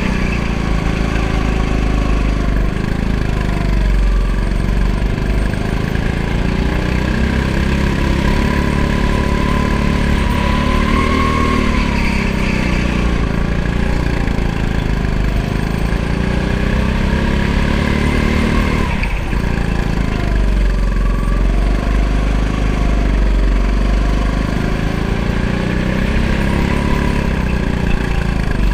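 Go-kart engine heard from on board at racing pace, its pitch falling as the driver lifts for each corner and climbing again on the throttle, over a steady low rumble.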